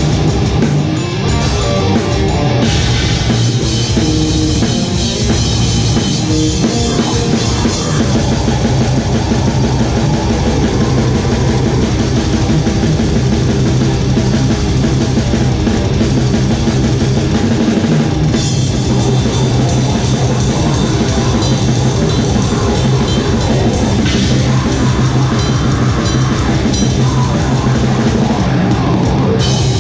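Heavy metal band playing live: a drum kit with cymbals driving under electric guitar, loud and continuous.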